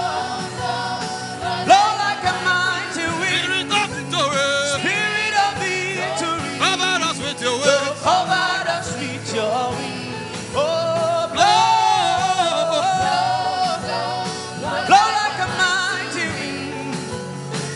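Gospel worship song: a singing voice with sliding, ornamented lines over instrumental backing with a steady beat.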